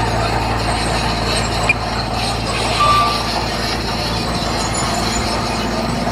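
Heavy diesel construction machinery running, with a steady metallic clatter over the engine. A short beep sounds about three seconds in.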